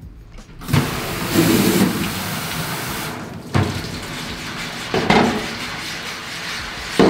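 Tap water running from a utility sink faucet and splashing onto a screen-printing screen as a hand scrubs the mesh to break down and wash out the exposed emulsion. The water starts about a second in, and there are three short knocks.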